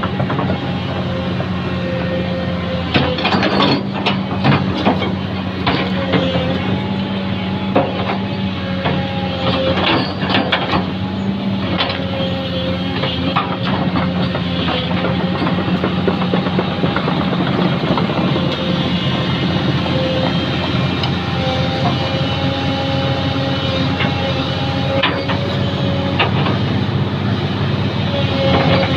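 A machine engine running steadily, with scattered knocks and clatter, heavier in the first third.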